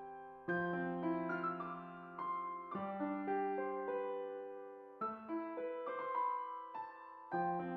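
Background music: a slow, gentle piano piece of chords and melody notes that ring out and fade between phrases.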